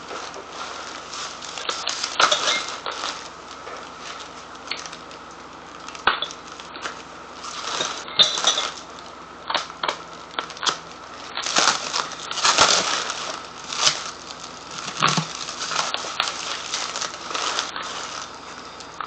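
Copper still parts and their packing material being unpacked from a box: irregular rustling and crinkling with sharp clinks and knocks, in uneven bursts.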